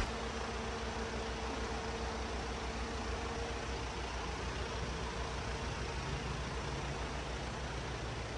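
Hino Dutro truck's diesel engine idling steadily with a low, even pulse, with its air conditioning switched on.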